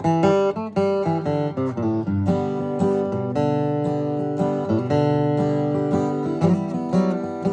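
Gallagher flattop acoustic guitar, flatpicked, playing a waltz melody over bass notes as a run of single plucked notes.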